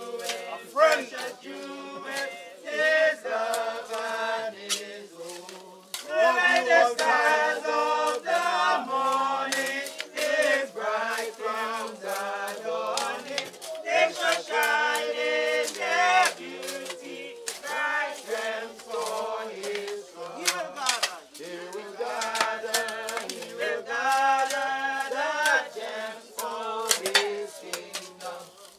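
A group of people singing a hymn together, with many sharp clicks and knocks throughout.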